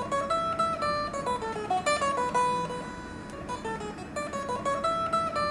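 Background music: a melody of short plucked notes in a phrase that repeats about every three and a half seconds.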